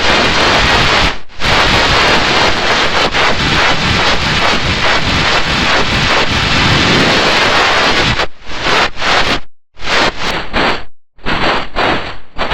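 Loud, harsh noise from a heavily distorted audio effect, with no clear tone, dropping out briefly several times near the end.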